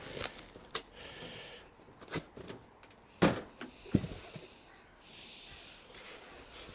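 Cardboard packaging being handled: rustling and sliding, with a few knocks and thumps, the loudest about halfway through.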